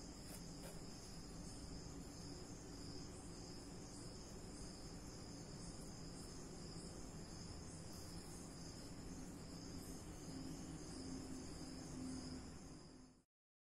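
Faint, steady, high-pitched chirring of insects, which cuts off suddenly near the end.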